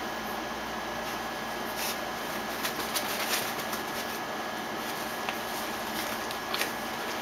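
Bulldog puppies playing: scattered light scuffs, scratches and knocks from paws and bodies moving about, over a steady background hiss.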